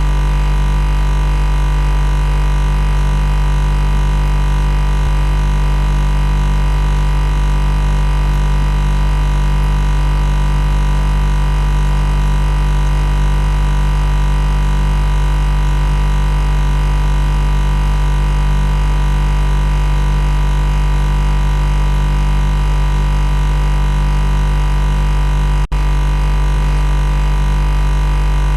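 Loud, steady machine buzz: a low electrical hum with many even overtones, unchanging throughout, with one split-second dropout near the end.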